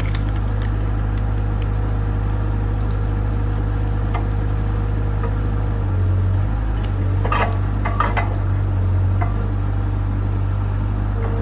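Bobcat 753 skid steer's engine running steadily with a steady high whine over it. About six seconds in the whine drops out and the engine note changes, and a few sharp clinks and cracks follow.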